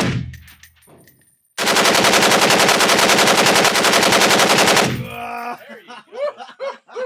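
Heckler & Koch G3 battle rifle in 7.62×51 mm firing fully automatic in an indoor range lane. The tail of a short burst comes at the very start. About a second and a half in, a long, evenly paced burst of rapid shots runs for about three seconds and then stops.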